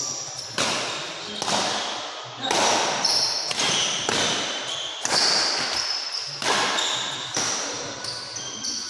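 Badminton rally: rackets strike the shuttlecock about once a second, each hit echoing in the hall, with short high squeaks of shoes on the court floor between hits.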